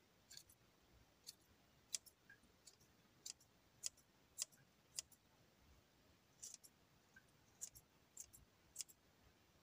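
Herb scissors snipping fresh basil leaves: about fifteen faint, sharp snips at irregular intervals, with a pause of a second or so in the middle.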